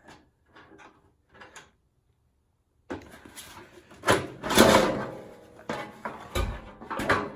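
Side panel of a desktop computer case being taken off after its thumbscrews are twisted out: a few light clicks, then the metal panel sliding and knocking. A loud clatter comes about four seconds in, a dull thump a couple of seconds later and a last knock near the end.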